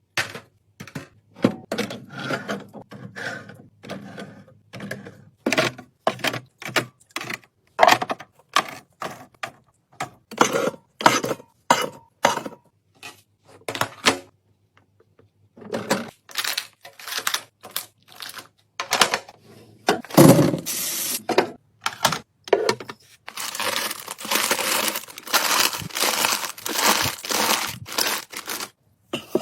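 Fridge restocking: plastic containers, bottles and packaging set down and handled in quick succession, many sharp clicks and knocks. Plastic packaging crinkles and tears in a dense stretch in the last third.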